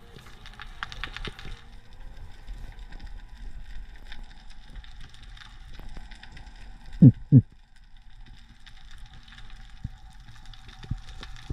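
Underwater crackling and clicking with a faint steady hum. About seven seconds in come two short, loud, low swooping sounds.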